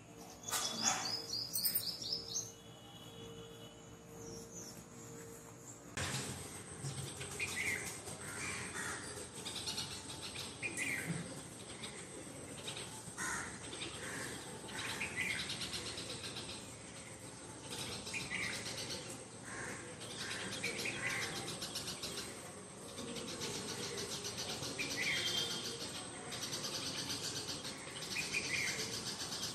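Birds calling, with short descending calls repeated every second or two over a steady hiss, and a quick run of high chirps near the start.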